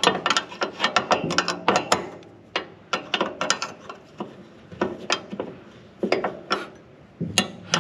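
Wrench tightening a nut on a mower deck drive-shaft bolt: short strokes of rapid metallic clicking with brief pauses between them.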